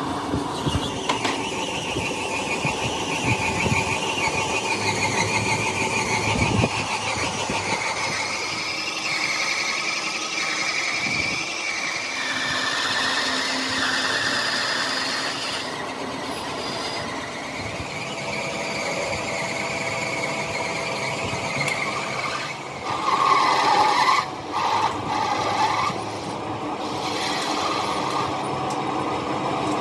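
Factory machinery running with steady high-pitched squealing tones over a dense machine hum; the squeal grows louder for a few seconds about three-quarters of the way through.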